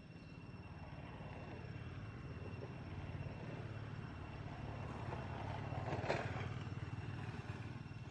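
A motor vehicle passing: a low engine drone that swells to its loudest about six seconds in and then fades, with a sharp crackle at the peak.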